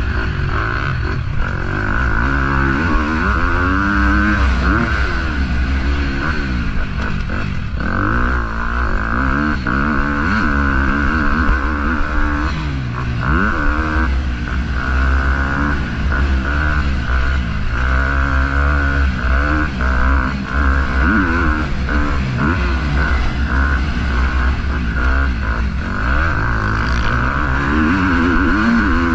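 2022 KTM 250 SX-F's single-cylinder four-stroke engine revving up and down under throttle and gear changes while riding a motocross track, its pitch climbing and dropping again every second or two.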